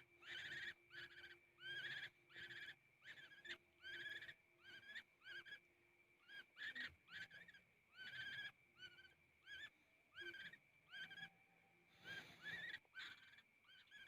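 A young woodpecker, still at the hand-fed stage, calling: a run of short calls, each rising in pitch, repeated about twice a second.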